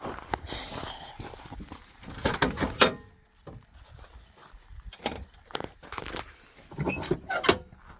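Rummaging through gear in the back of an SUV for a hand saw, with the rear door and latch: a series of clunks, clicks and rattles, loudest about two and a half seconds in and again near seven seconds.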